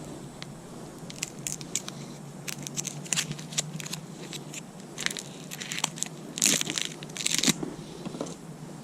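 Hand tools working a screw hole in a car tire: a string of sharp clicks and short crunchy scrapes, the loudest two rasping scrapes about six and a half and seven and a half seconds in.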